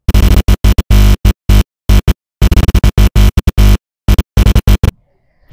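Loud electronic music, chopped into a stuttering on-off pattern that cuts in and out many times a second, ending abruptly about five seconds in.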